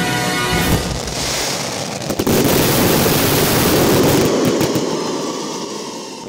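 Music fading out in the first second, then a dense firework barrage starting suddenly about two seconds in: rapid reports and crackling stars run together into a continuous rattle that fades toward the end.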